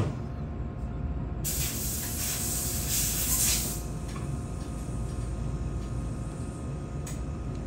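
A pressurised jet hisses for about two and a half seconds, starting about one and a half seconds in, over a steady low hum.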